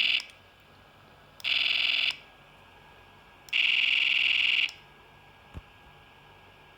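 Piezo speaker on an AD8307 logarithmic RF detector and LM386 amplifier, giving a harsh, high buzzing tone in bursts each time a remote key's button is pressed: the detector is picking up the remote's radio transmission. Two bursts of about half a second and about a second follow the tail of an earlier one.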